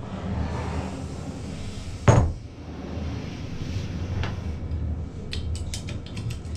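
Steel workholding tooling, a vise on its leveling adapter, being handled: one sharp metal clunk about two seconds in, a lighter click a couple of seconds later, then a quick run of small metallic clicks near the end as a hex key is worked into the fixture.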